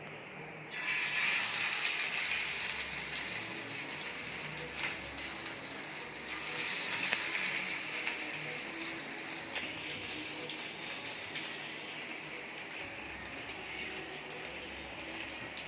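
Hot oil sizzling and crackling in a frying pan as marinated fish pieces go in to fry, starting suddenly under a second in and carrying on steadily with many small pops.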